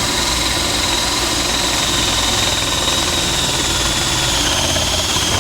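Electric drill running steadily, its bit boring a starter hole through a wooden 4x4 fence post. A high whine sags slightly in pitch toward the end.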